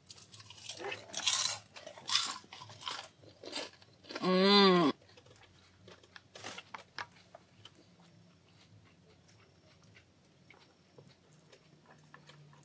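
Loud crisp crunching as someone bites into and chews deep-fried vegetable spring rolls, several crunches in the first few seconds. A short hum of the voice comes about four seconds in, followed by quieter chewing with small clicks.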